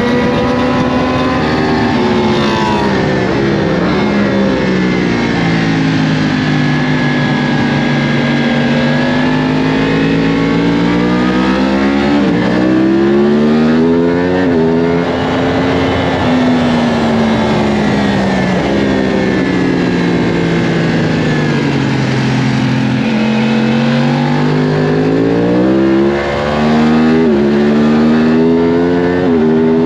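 Yamaha R1 superbike's inline-four engine at track speed, heard from on the bike: its pitch falls as the throttle rolls off and climbs again under power, with several sudden jumps in pitch from gear changes, over steady wind rush.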